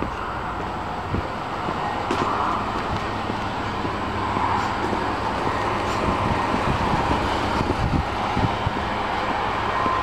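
Steady outdoor rushing noise, strongest in the middle range, with the low knocks of footsteps and handling of a handheld camera walking along a path.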